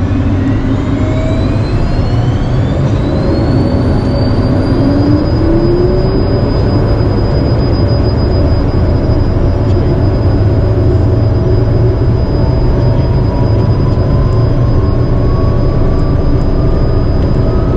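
Cessna Citation M2's twin Williams FJ44 turbofans spooling up to takeoff power, heard from inside the cockpit: a whine climbs over the first few seconds and then holds steady over a loud, steady low rumble as the jet rolls down the runway.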